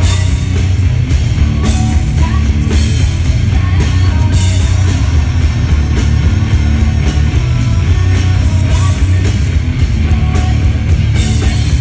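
Live rock band playing loud: distorted electric guitar, bass and a drum kit keeping a steady beat with cymbal crashes.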